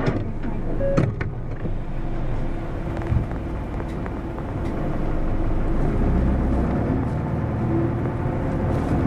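Hino SDG-HX9JLCE (Hino Poncho) small bus's diesel engine running steadily, with a few sharp clicks in the first seconds. The engine note grows louder about five to six seconds in.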